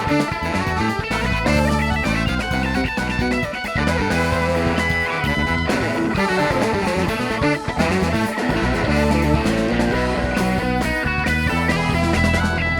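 Instrumental rock music: electric guitar playing over bass guitar, with no singing.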